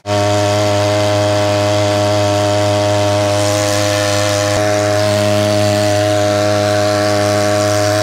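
Small air-cooled two-stroke outboard motor on an inflatable boat, running steadily at one even speed and pushing the boat along, with a buzzy, chainsaw-like tone.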